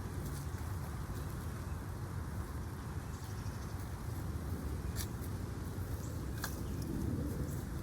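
Steady low rumble of outdoor noise on the microphone in the rain, with a few sharp clicks or taps, the clearest about five and six and a half seconds in.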